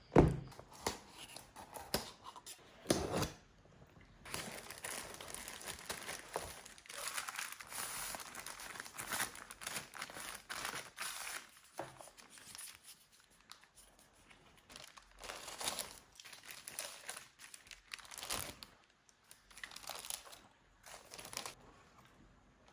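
Product packaging being opened by hand: irregular bursts of crinkling and tearing, with a few sharp knocks, the loudest at the very start.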